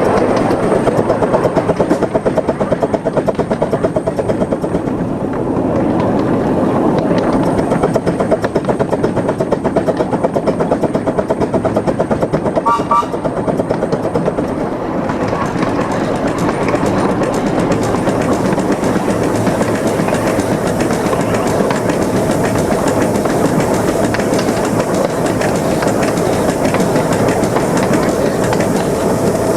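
Miniature 15-inch gauge Krupp 4-6-2 Pacific steam locomotive running along the line, heard from the footplate, with rail clatter under its train. A fast, regular pulsing fills the first half and the sound is steadier in the second half, with a brief high tone about halfway through.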